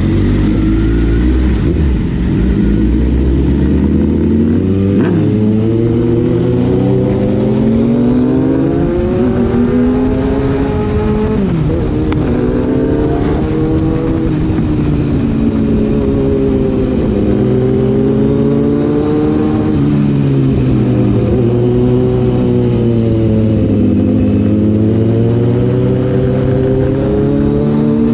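Kawasaki inline-four superbike engine with an aftermarket exhaust, ridden: the engine note climbs and falls repeatedly, with sudden drops in pitch where it shifts or rolls off the throttle.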